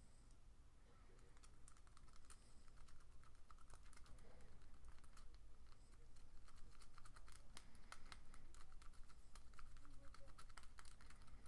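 Metal lock pick raking inside a padlock's keyway against a tension wrench: faint, irregular small clicks and scratchy scraping, getting busier partway through. The pick's ridges feel rough and sticky on the pins.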